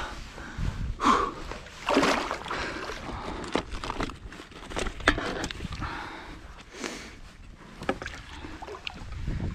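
Water sloshing and splashing as a hooked catfish is played and drawn alongside a float tube, in irregular bursts with a few sharp knocks.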